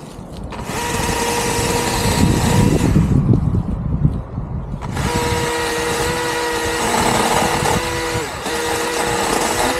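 Electric Husqvarna chainsaw running with a steady whine as it cuts small tree trunks near the ground. The whine breaks off for about two seconds in the middle and dips briefly near the end.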